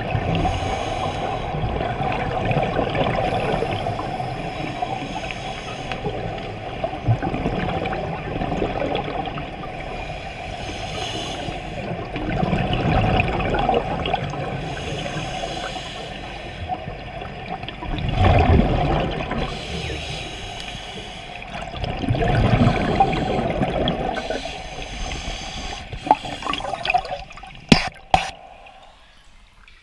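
Scuba breathing underwater: divers' regulators with bubbles gurgling out in bursts every few seconds, heard through the water. Near the end come a couple of sharp clicks, and then it drops quieter.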